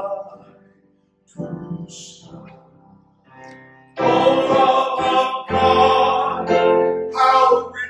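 Sung music with instrumental accompaniment: voices singing in phrases, quiet at first, then louder from about halfway in, over a low sustained bass note.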